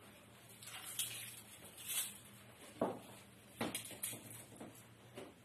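Faint scattered clicks and knocks, roughly once a second, as a tape measure is pulled out and handled.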